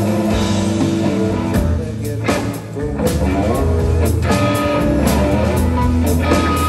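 Live blues-rock band playing: electric guitar, electric bass and drum kit, with a heavy bass line under the guitar, easing off briefly about two and a half seconds in.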